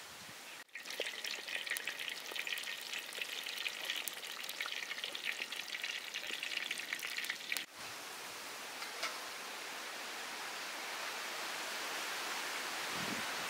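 Whole bananas deep-frying in hot oil in an iron kadhai: a dense crackling sizzle, which changes abruptly about eight seconds in to a softer, steadier hiss.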